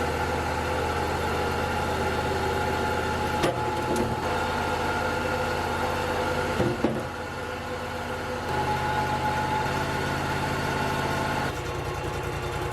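Engine of a Wood-Mizer LT35 portable sawmill running steadily at idle, with a couple of short knocks about a third and halfway through.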